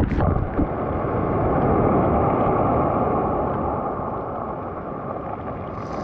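Sea waves washing up a pebble beach: a splash right at the start, then a steady rush of surf that eases off toward the end.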